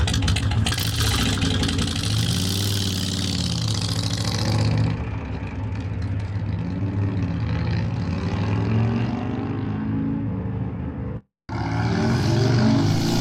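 Motorcycle engine running, its pitch rising and falling every second or two as it is revved, with a brief cut to silence about eleven seconds in.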